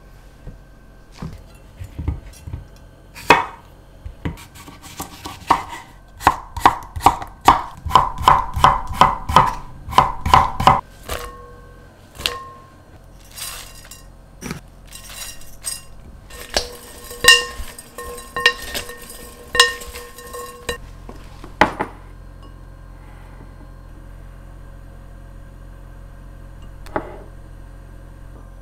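Kitchen knife chopping cucumber on a wooden cutting board: a few single cuts, then an even run of chops at about three a second. After that come clinks against a glass mixing bowl as the cucumber pieces and coarse salt go in, with a last knock, then quiet.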